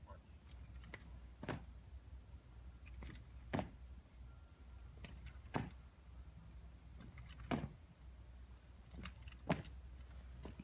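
Sharp knocks and clunks about every two seconds as an honor guard handles a casket on a wheeled bier at the back of a hearse, over a low steady hum.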